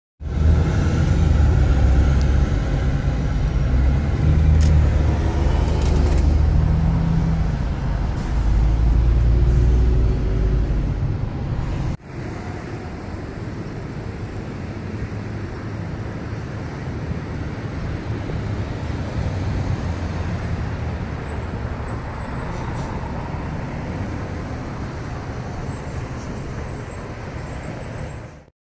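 Car driving, heard from inside the cabin: engine and tyre road noise with a heavy low rumble, the engine note rising and falling twice. About twelve seconds in it cuts to a quieter, steady outdoor traffic noise.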